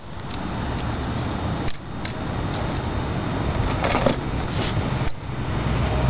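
Wind blowing across the microphone: a steady rushing noise that drops away briefly twice, with a few faint rustles and clicks.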